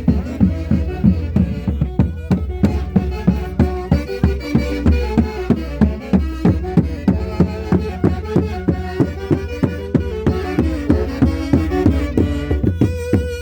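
Andean folk orchestra playing festival music at full volume, several melody instruments over a steady, evenly spaced drum beat.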